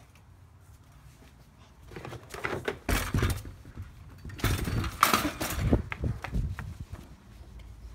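Knocks, clatter and rustling handling noise from a hand-held phone being carried on the move. It comes in two loud bursts, about two to three seconds in and again about four and a half to six seconds in.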